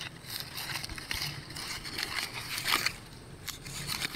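Leafy guava branches rustling and crackling as they are handled and pushed through, with a few sharper cracks.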